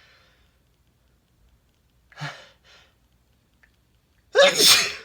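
A man's breath catching briefly about two seconds in, then near the end a single loud sneeze with a falling voiced cry.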